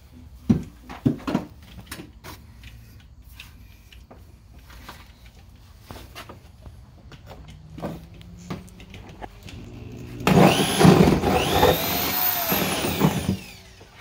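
A few knocks and clicks from parts being handled, then about ten seconds in a power drill runs hard for about three seconds, its pitch rising and falling as it cuts the 3.5-inch snorkel hole through the UTV's body panel.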